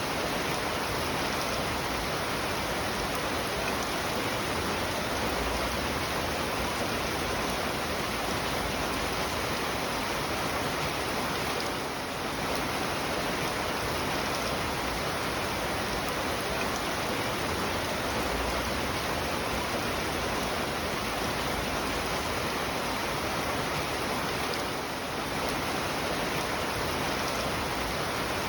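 Rain falling steadily, an even hiss that dips slightly twice.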